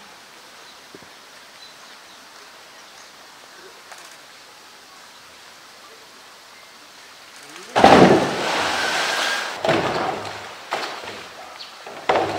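A polar bear plunging into a pool. After a faint steady background, a loud splash comes about eight seconds in, with churning water after it. Several more splashes and hollow knocks follow as the bear grabs a floating plastic barrel.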